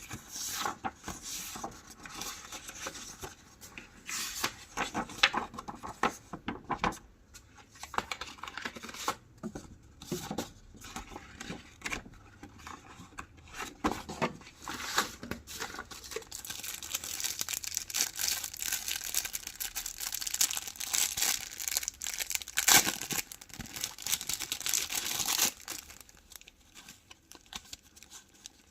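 Paper being handled at close range for journal crafting: it rustles, crinkles and tears, with short taps and clicks. In the second half it turns into a longer, nearly continuous rustle, then eases off near the end.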